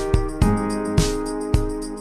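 Background music with a steady beat of about two strikes a second over held chords.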